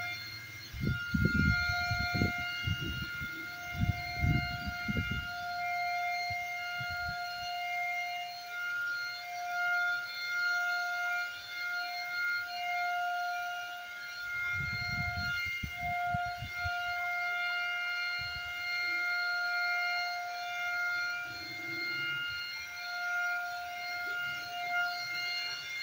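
Handheld electric (turbine) paint spray gun running steadily while spraying finish onto wooden ceiling beams: a continuous high-pitched motor whine that wavers in strength. Low rumbling bumps come through in the first few seconds and again about halfway.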